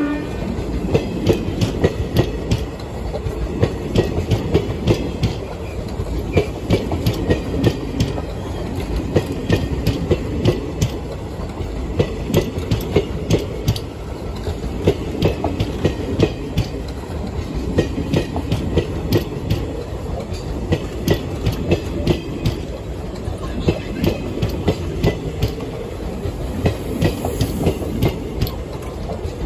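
Coaches of an Indian Railways passenger train rolling past close by, their wheels clicking over the rail joints in a continuous run of clicks above a steady low rolling noise.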